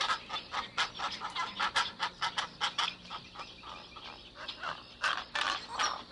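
Bird calls: a rapid run of short, harsh calls, several a second, easing off in the middle and picking up again near the end.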